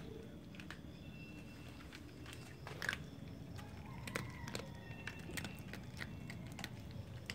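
Domestic cats crunching dry kibble in their bowls: scattered small crisp crunches and clicks, the loudest about three seconds in.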